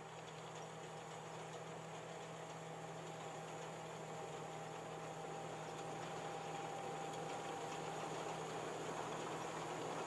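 Tracked combine harvester running steadily as it cuts, a continuous engine hum that grows gradually louder as the machine comes closer.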